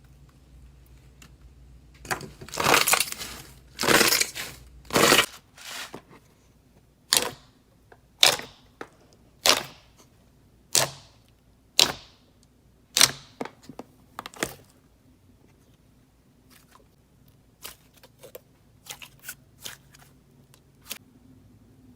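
Slime being squeezed and worked by hand: a few crunchy crackling squeezes, then a run of sharp pops about once a second, then small faint clicks near the end.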